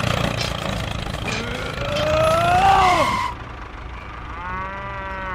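Tractor engine running steadily. A drawn-out pitched call rises and then falls through the middle of it, and the engine noise drops away after about three seconds. A second long, cow-like call follows near the end.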